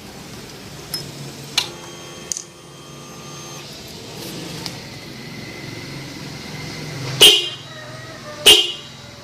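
Motorcycle electric disc horn sounding in short toots: a few brief, fainter notes early on, then two short, loud blasts about a second apart near the end, over a steady low hum.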